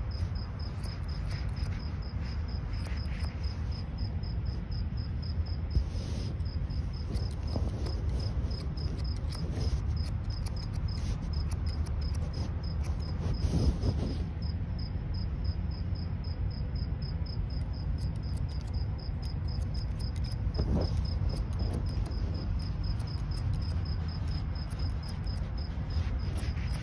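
Barber's scissors snipping hair in quick runs of crisp clicks, pausing briefly about halfway through. Behind them a cricket chirps steadily in an even high-pitched pulse over a low background rumble.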